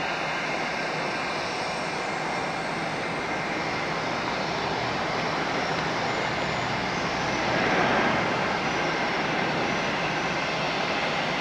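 Airliner jet engines running, a steady rushing noise that swells briefly about eight seconds in.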